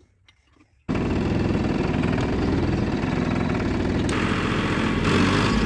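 Tractor diesel engine running steadily, cutting in suddenly about a second in after faint clicking, and growing slightly louder in the last second or so.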